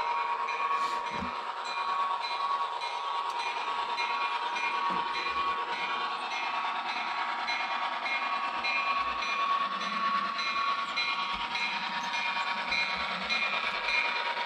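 HO scale model diesel locomotive running on the layout track: a steady high motor whine with a regular repeating ticking pattern.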